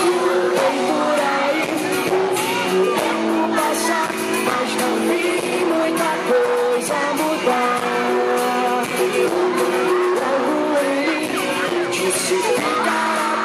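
Live pop music with singing: a band playing and a voice singing the melody with held and sliding notes.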